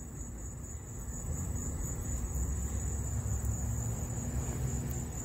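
Steady high-pitched chorus of insects, with a low rumble that swells from about a second in and becomes the loudest sound.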